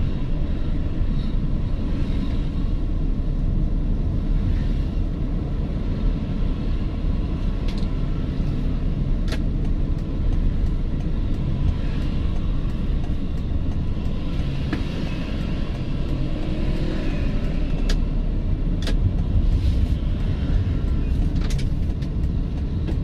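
Steady low rumble of a small manual car's engine and tyres heard from inside the cabin while driving in traffic, with a few short faint clicks.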